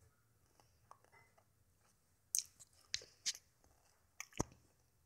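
Someone biting and chewing crunchy food close to the microphone: a handful of sharp crunches, mostly in the second half.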